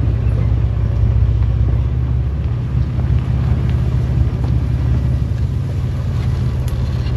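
Off-road utility vehicle's engine running steadily with a low drone, pulling a broken-down side-by-side on tow along a rocky trail, with a few faint clicks and knocks from the trail.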